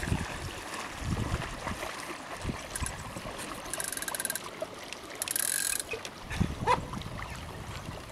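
Water washing along a sailing boat's hull, with two short bursts of rapid mechanical clicking, about four and five and a half seconds in.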